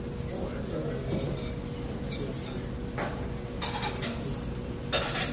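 Restaurant dining-room background: a steady hum under faint murmur, with a couple of sharp clinks of dishes or cutlery, one about three seconds in and one near the end.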